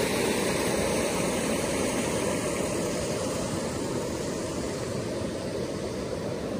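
Rain-swollen mountain stream rushing over rocks, a steady rush of water that slowly grows fainter.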